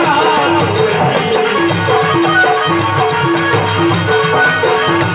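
Instrumental passage of a Rajasthani folk bhajan: a short melodic phrase repeating in even notes over steady folk percussion.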